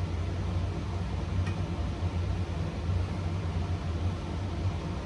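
Steady low mechanical hum with an even hiss, like a fan running, with one faint small tick about a second and a half in.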